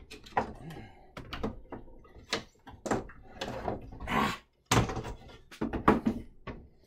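A small wooden door bumping and being set down: a run of irregular knocks and thunks, the loudest about six seconds in.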